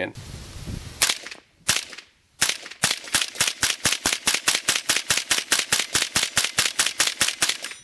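.22LR rounds fired from an AR-15 rifle through a CMMG .22LR conversion kit: two single shots about a second apart, then a long rapid string of sharp reports at about five or six shots a second that stops near the end.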